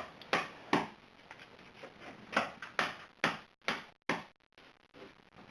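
A match being struck against the box again and again without catching, about seven short scratchy strikes in two groups. The matches are damp.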